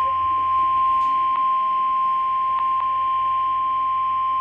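NOAA Weather Radio 1050 Hz warning alarm tone: one steady, unbroken high beep over faint radio hiss, the alert that a warning broadcast, here a severe thunderstorm warning, is about to follow. A few faint clicks sound under it.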